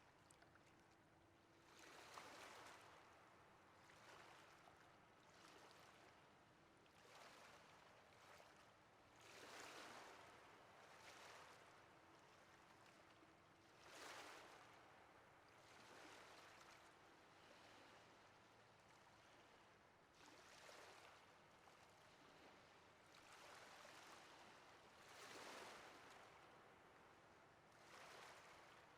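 Faint ocean waves washing in, a soft surge of surf every two to three seconds.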